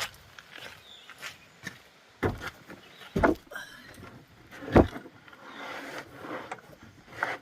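Hand tools being handled: light clicks and clinks with three heavier clunks, the loudest about two-thirds of the way in, as wrenches are gathered to remove a bolt.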